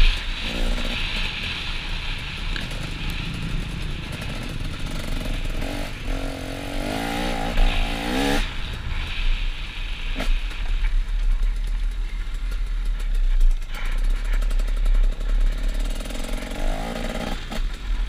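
Dirt bike engine being ridden hard on a motocross track, revving up and down as it goes through the gears, with wind rumbling on a helmet-mounted microphone. The engine pitch climbs in quick steps around the middle and again near the end.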